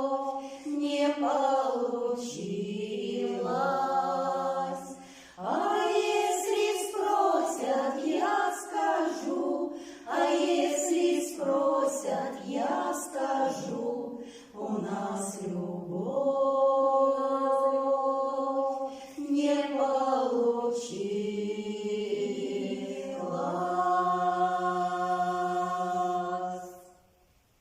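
A vocal ensemble sings the closing lines of a Russian folk-style song in several-part harmony, holding long drawn-out chords. The singing stops about 26 seconds in, at the end of the song.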